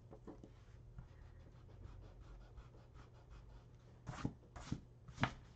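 Faint scratching and rustling on sketchbook paper, then, about four seconds in, three short, louder strokes of a rubber eraser rubbing on the page.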